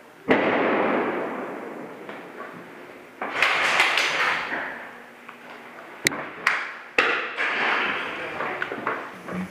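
Three sudden loud bangs, each trailing off in a hissing echo that fades over a couple of seconds in tiled hallways, with a few sharp cracks shortly before the third: airsoft sound grenades going off.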